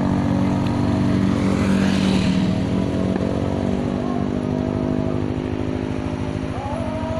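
Motorcycle engine running steadily at low speed, with an even pulsing note. A steady higher tone joins near the end.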